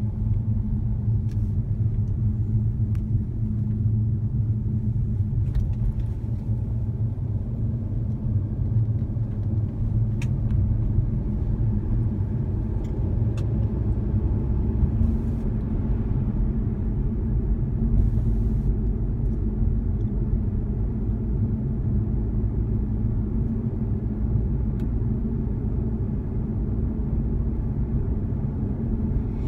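Steady low rumble of a moving car, heard inside its cabin: road and engine noise while cruising, with a few faint clicks.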